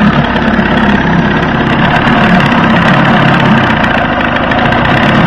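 1981 Evinrude 35 hp two-cylinder two-stroke outboard running steadily at idle.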